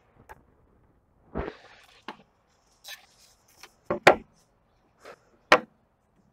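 Irregular knocks and taps of a stainless steel bar frame being fitted around a maple board on a workbench, about eight in all, the loudest two about four and five and a half seconds in.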